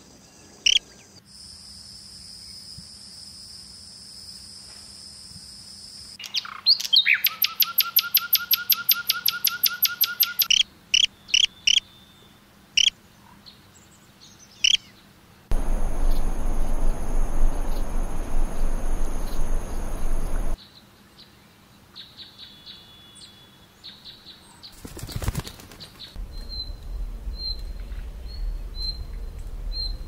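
Small songbirds calling in a varied sequence: a steady high note held for a few seconds, then a fast trill, then separate chirps. In the middle comes a stretch of steady hiss with high whistling tones over it, and near the end short high chirps repeat about twice a second.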